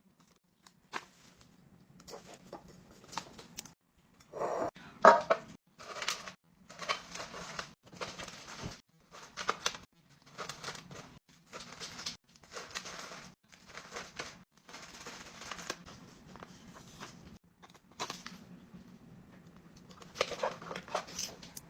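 Plastic and paper packaging rustling and tearing as groceries are unpacked, in a long run of short hissing bursts with a few light clicks and knocks.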